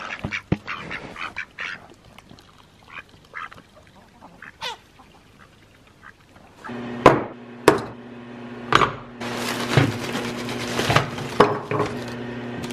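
Domestic ducks quacking softly now and then. About halfway through, clear plastic bags crinkling and rustling loudly as they are handled, over a steady hum.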